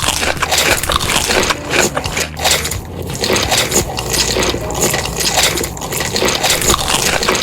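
Close-up eating sounds: chewing and crunching of food, a dense, irregular run of crackles and clicks.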